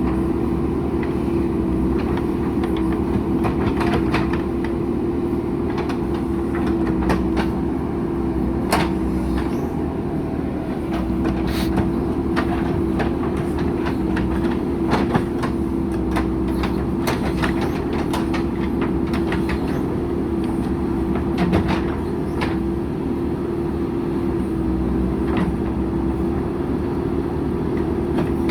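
JCB 3DX backhoe loader's diesel engine running steadily, with frequent short, sharp clicks and knocks over the engine drone throughout.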